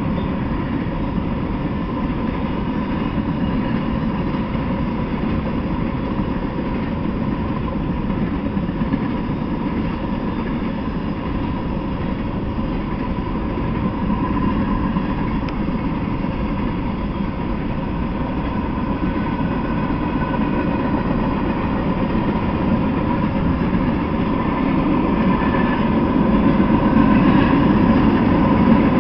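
Freight train of covered hopper cars and tank cars rolling past, a steady rumble and clatter of steel wheels on the rails with a faint steady high tone over it, growing a little louder near the end.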